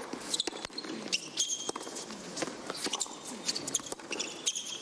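Tennis ball being struck and bouncing on a hard court, a string of sharp irregular pops, with tennis shoes squeaking on the court surface several times, over a low crowd murmur.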